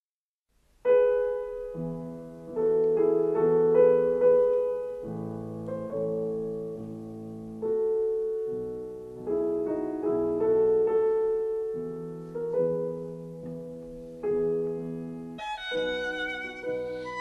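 Classical violin-and-piano music. After a moment of silence the piano plays a passage of chords alone, and the violin comes in near the end.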